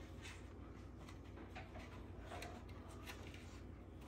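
Faint handling noises: soft rustles and light ticks as a wrist strap's cord is threaded through the strap mount of a Canon PowerShot G7X Mark III compact camera and the paper instruction booklet is handled, over a low steady hum.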